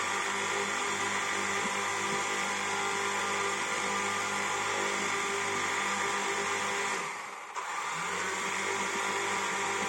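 Quadcopter drone's electric motors and propellers buzzing steadily. The buzz dips about seven seconds in, then picks back up.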